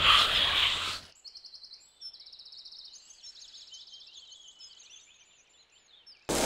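Water from a hose splashing onto an elephant's wet hide as it is rubbed by hand, cutting off after about a second. Then it is quiet, with small birds chirping and trilling, until the splashing and scrubbing start again suddenly near the end.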